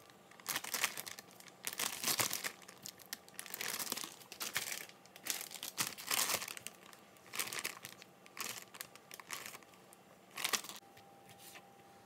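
Plastic zip-top freezer bag crinkling in irregular bursts as it is handled and raw chicken pieces are put into it. The crinkling stops about ten and a half seconds in.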